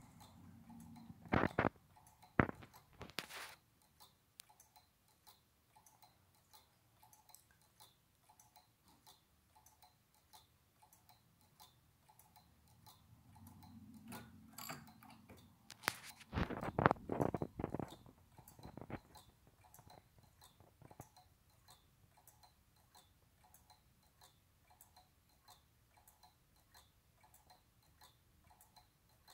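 Dr Woodward's gearless pendulum clock ticking steadily, its brass mechanism giving evenly spaced faint clicks. A few louder knocks sound about two seconds in, and a louder cluster comes around seventeen seconds in.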